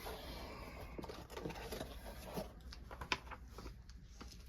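Faint rustling and handling of snack packages, with light clicks and a sharper tap about three seconds in.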